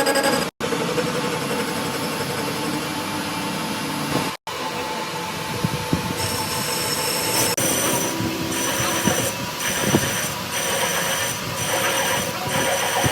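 Metalworking machinery running with a loud, steady grinding and whining, which pulses in a regular rhythm in the second half. Abrupt cuts split it into separate stretches.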